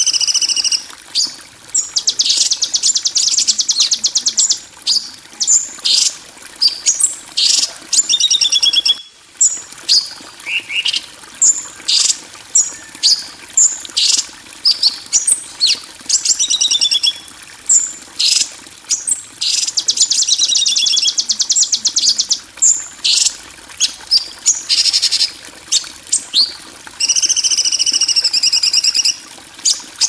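Small songbirds singing: rapid high chirps and fast trills that follow one another almost without a break, with a brief pause about nine seconds in. Faint flowing water runs underneath.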